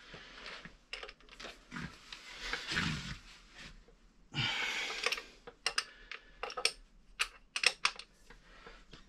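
Hands working on the machine's parts: two stretches of rubbing and scraping, then a run of short, light clicks and taps.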